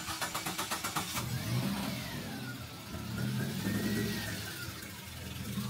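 A motor vehicle's engine nearby: about a second of rapid, even clattering, then the engine running with a low hum whose pitch rises and falls.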